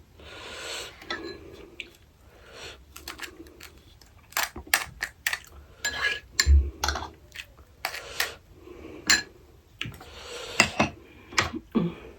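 Pani puri being eaten close to the microphone: scattered sharp clicks and clinks of utensils against dishes, mixed with short crunching and mouth sounds at an uneven pace.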